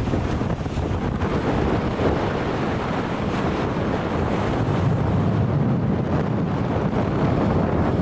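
Gusty wind buffeting the microphone ahead of a summer thunderstorm, over the wash of small waves breaking on a sandy beach.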